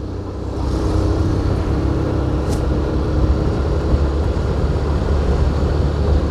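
Engine and road noise from a moving motor vehicle, growing louder over the first second and then steady, with a brief hiss about two and a half seconds in.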